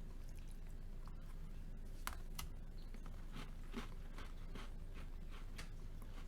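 Faint, irregular crisp crackles and ticks from a packet of seeded butter cookies being handled and eaten, a dozen or so over a few seconds.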